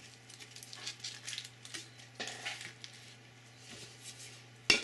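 Aluminium foil crinkling and rustling in short bursts as a foil-wrapped plastic piece is handled and set down inside a metal paint can, with one sharp knock near the end.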